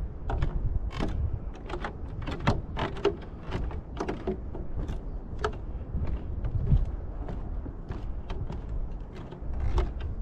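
Footsteps on a wooden boardwalk: irregular knocks and creaks from the planks underfoot, a few every second.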